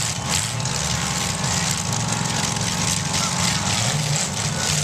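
Several demolition derby cars' engines running hard together at the start of a heat, a steady loud engine din.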